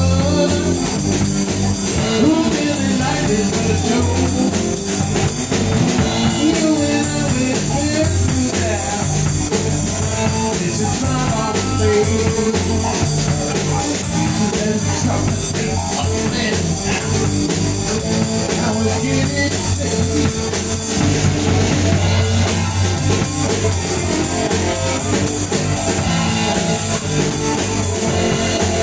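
Rock band playing live: electric bass guitar and drum kit going steadily together.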